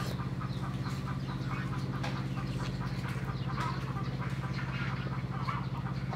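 Poultry (ducks and chickens) calling in many short, scattered calls over a steady low hum.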